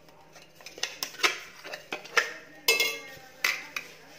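Stainless steel mixer-grinder jar clanking against a glass bowl as the ground ragi mixture is knocked and scraped out of it. It makes a string of irregular sharp knocks and clinks, the loudest about two to three seconds in, one of them ringing briefly.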